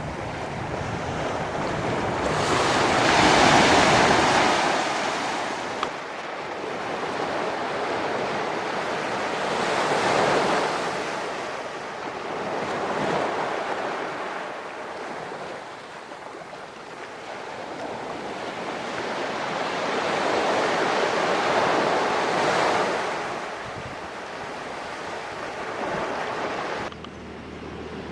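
Ocean surf breaking on a beach, the wash of the waves swelling and falling away several times, with some wind noise on the microphone.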